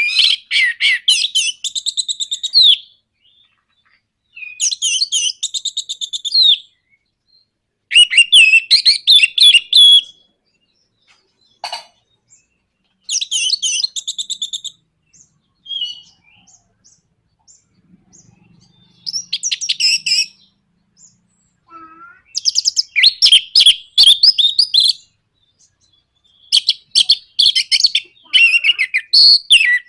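Orange-headed thrush (anis merah) singing in bursts of fast, rattling repeated notes, the 'nrataktak' song style, each phrase two to three seconds long with short pauses between.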